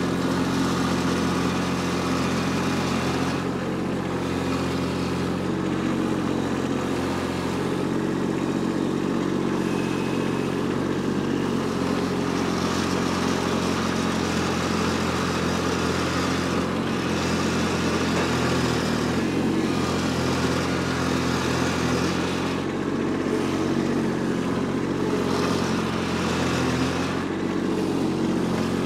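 Kubota B2601 compact tractor's three-cylinder diesel engine running steadily under load, its pitch dipping briefly about two-thirds of the way through, as the front-end loader bucket scrapes and pushes through soil and roots around a tree stump.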